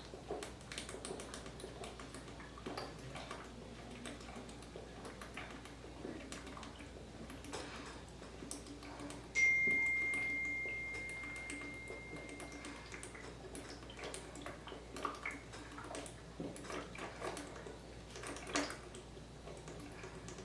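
Someone chugging soda, with soft gulps and small clicks of swallowing. About halfway through, a single clear ringing tone starts suddenly and fades away over a few seconds.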